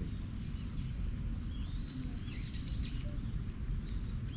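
Small birds chirping, a quick cluster of high twittering calls about one and a half to three seconds in, over a steady low rumble.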